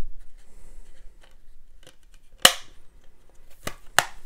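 Plastic Blu-ray case being closed and handled: one sharp snap about halfway through, then a couple of lighter clicks near the end.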